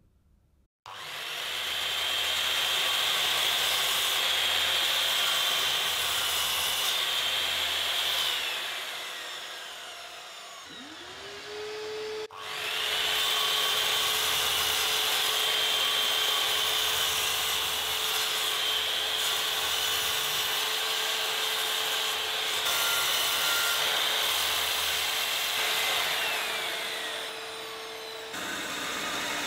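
Mitre saw cutting a thick block of ash. The saw starts just under a second in, cuts for about eight seconds and winds down. It starts again at about twelve seconds, its motor tone rising as it spins up, and cuts for about sixteen seconds more before the sound changes shortly before the end.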